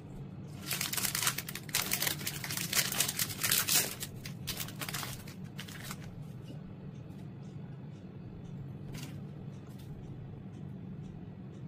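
Plastic wrapper of a Britannia Bourbon biscuit packet crinkling and tearing as it is opened, a dense crackle lasting about four seconds, followed by a few faint clicks of handling. A low steady hum runs underneath.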